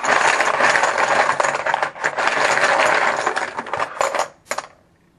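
Dice rattling hard and fast in a shaker cup, stopping about four seconds in with two last clicks as they land.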